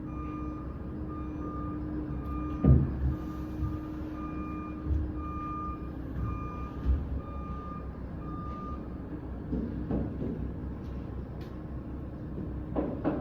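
Vehicle reversing alarm beeping steadily, then stopping about nine seconds in, over a steady engine hum. A few dull thumps come through, the loudest about three seconds in.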